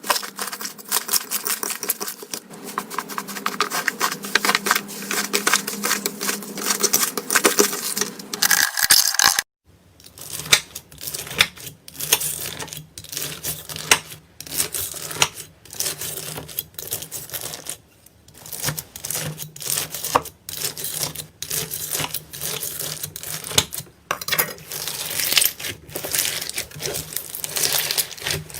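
Slime being worked by hand, giving dense, fast crackling and popping clicks. The sound changes a little over nine seconds in, after a short break, and the clicks continue with a low hum beneath them.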